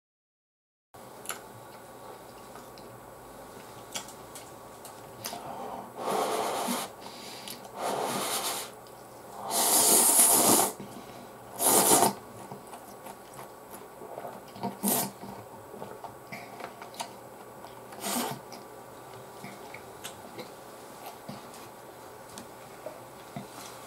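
A person slurping instant ramen noodles in four noisy slurps between about six and twelve seconds in, the third the longest and loudest, followed by small wet clicks of chewing.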